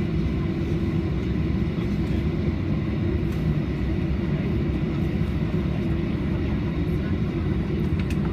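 Steady low rumble of a Ryanair Boeing 737-800's jet engines running, with no rise or fall in level.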